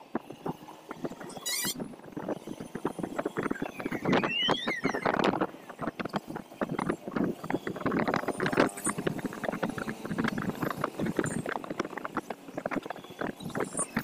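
Wind buffeting the microphone of a phone on a moving motorcycle, over the noise of the bike and the surrounding road traffic. A short rising tone sounds about four seconds in.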